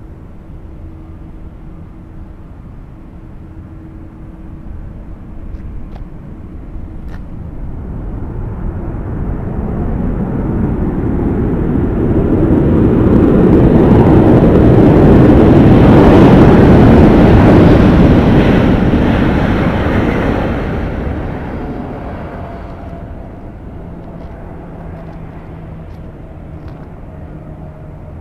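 Jet aircraft passing: a steady engine rush that builds slowly, is loudest about halfway through, then fades away over several seconds.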